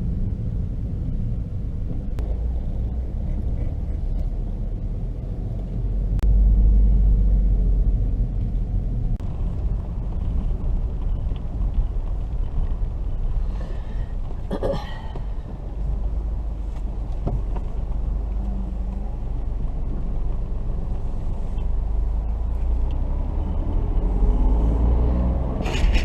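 Low, steady rumble of a car on the move, engine and road noise, swelling louder a few times.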